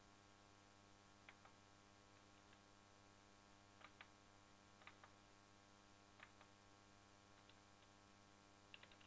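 Near silence: a faint steady electrical hum with scattered faint clicks, some single, some in pairs, and a quick little cluster near the end.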